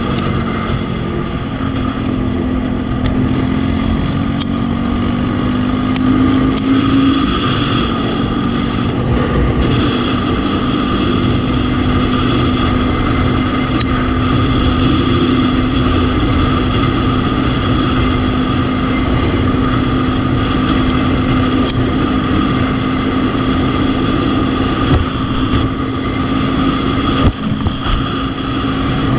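Sundown Next 250 motorcycle's single-cylinder engine running under way at a steady speed, with wind rushing over the microphone. The engine note rises a little in the first few seconds, then holds steady.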